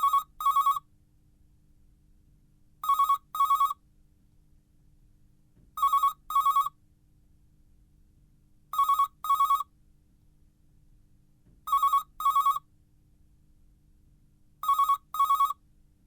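Telephone ringing in a double-ring pattern: two short warbling rings, a pause of about two seconds, then two more, six times over.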